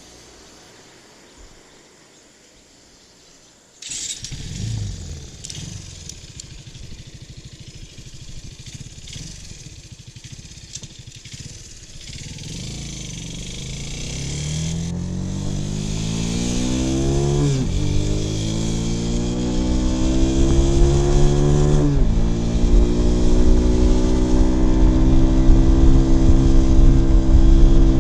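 Kawasaki W175's single-cylinder engine starting about four seconds in and idling unevenly, then the motorcycle pulling away and accelerating, its exhaust note rising through the gears and dropping sharply at each upshift, twice, and again at the very end.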